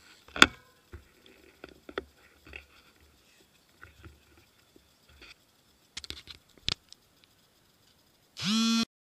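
Scattered light clicks and knocks over a faint street background, with a sharp click about half a second in and a few more around two-thirds of the way through. Near the end, a loud, short horn-like tone rises quickly in pitch, holds for under half a second and cuts off abruptly.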